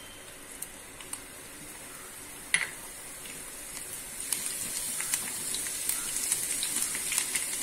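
Chopped garlic and onion frying in hot oil in a nonstick kadai, a sizzle with many small crackling pops. It grows louder from about halfway through as the pieces are stirred with a silicone spatula. A single sharp knock about two and a half seconds in is the loudest sound.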